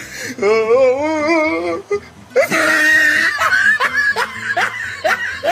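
A person's voice wailing with a wobbling pitch, then a harsh shriek about two and a half seconds in, followed by a run of short rising cries like laughter.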